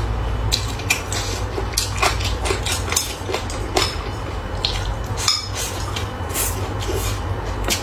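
Eating sounds: utensils clicking and clinking against a bowl or dish many times at an irregular pace, over a steady low hum.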